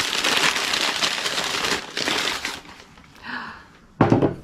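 Paper crinkling and rustling as a wrapped drinking glass is unwrapped. The crinkling is dense for about two and a half seconds, then dies down.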